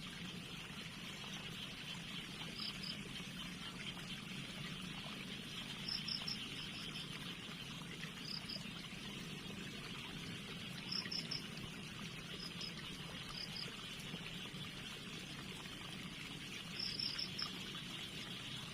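Steady trickle of a small river's flowing water. Short high chirps come over it three or four at a time, every few seconds.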